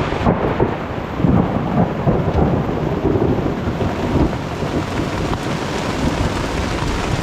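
Severe thunderstorm heard from inside a tent: heavy rain pouring down on the tent, with thunder rumbling, strongest in the first few seconds.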